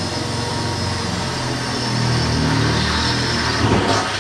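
Handheld power grinder running steadily against sheet-steel body panel, cleaning it down to expose the spot welds. A high whine rides over a dense hiss, and the sound grows heavier under load from about a second in.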